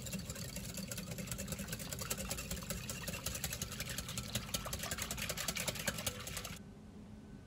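Wire whisk beating a runny egg, milk and oil mixture in a glass bowl: a fast, even clatter of clicks as the wires strike the glass, cutting off abruptly about six and a half seconds in.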